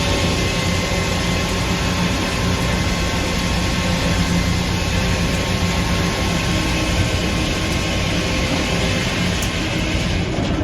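Sawmill headrig running steadily while the saw cuts through a red oak log: a loud, even machine hum with the rushing noise of the cut, heard from inside the operator's cab.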